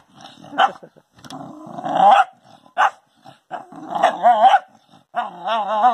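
A dog growling, with short sharp barks in between and wavering, warbling growl-barks near the end: a dog threatening its own reflection in a mirror as if it were a rival dog.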